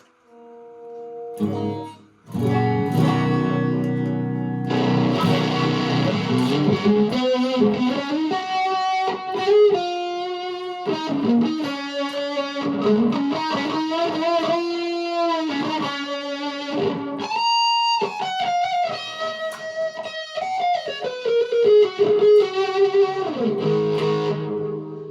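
Electric guitar played through a Behringer OD300 overdrive pedal into a Vox MV50AC amp. A held chord opens it, then a lead line with string bends and a high note with vibrato, ending on chords.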